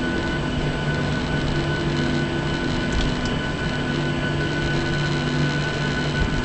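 Cabin noise of a Boeing 737-700 taxiing, heard from a window seat beside the wing: its CFM56-7B turbofans run at low taxi power, a steady rush with a high, even whine over it and a low hum that swells and eases.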